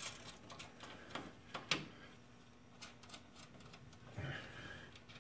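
Faint, scattered metallic clicks and knocks of hand tools and steel suspension parts being handled and fitted, the sharpest about a second and a half in.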